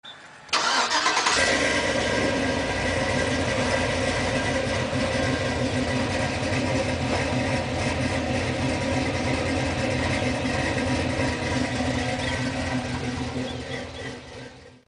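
A vehicle engine starts up about half a second in and then runs steadily, fading out near the end.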